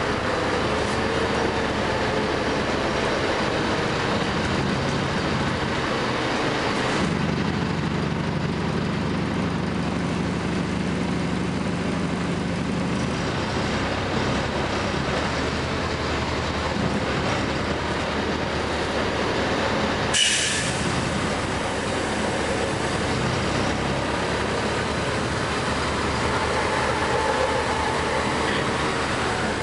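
Interior of a LiAZ 4292 city bus on the move: steady engine and road noise, with the engine's hum changing tone a few times as the bus speeds up and slows. A single short, sharp noise comes about twenty seconds in.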